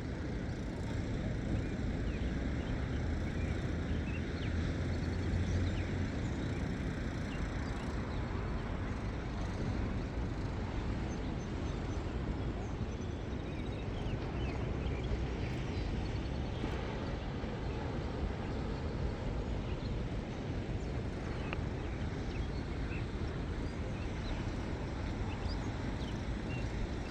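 Steady outdoor background noise: a low rumble with a hiss over it, unchanging throughout.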